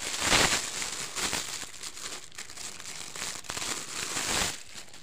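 Clear plastic bag crinkling and rustling as hands handle and open it. The sound stops shortly before the end.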